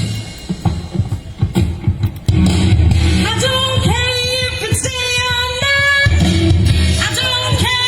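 Live band playing a blues song through a PA line array. The bass and drums thin out for about two seconds, then come back in, and a singer's voice enters about three seconds in.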